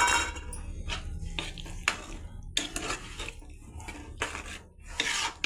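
Metal spoon stirring and scraping in a cooking pan: a string of short scrapes and clinks about every half second, the loudest right at the start and near the end.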